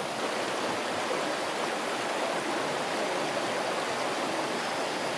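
Steady rush of a shallow rocky river flowing over stones and small rapids.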